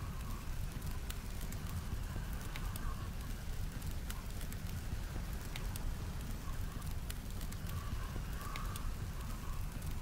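Wood fire burning in a stone fire pit, crackling with scattered sharp pops, over a steady low rumble of blizzard wind.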